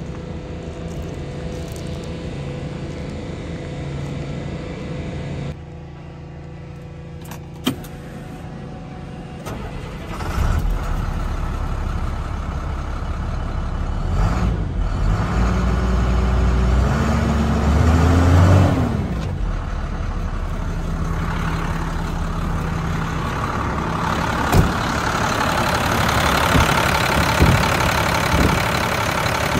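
2005 International 4300 truck's diesel engine being started: it comes in suddenly about a third of the way in, rises in pitch, drops back, and settles into a steady idle.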